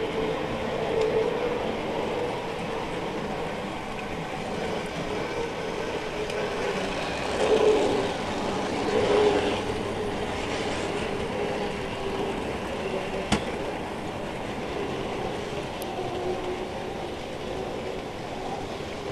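Tri-ang Hornby model freight train running on the track, heard from a wagon within the train: a steady motor hum with the rattle of the wheels over the rails. It swells louder twice around the middle, and there is a single sharp click about two-thirds of the way through.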